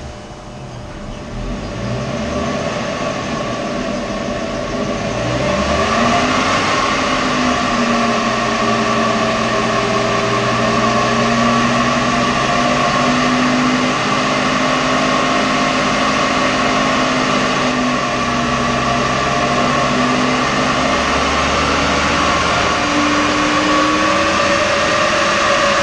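Mercury Grand Marquis's rebuilt 4.6-litre SOHC V8 running on a roller chassis dyno through its five-speed manual: the engine note climbs in several rising steps over the first few seconds as it is taken up through the gears, then holds a steady cruise. This is gentle running-in of the freshly rebuilt engine.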